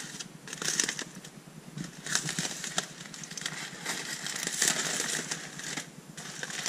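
Crumpled aluminium foil wrapping crinkling and crackling as hands pull it open, an uneven run of crackles with a brief lull near the end.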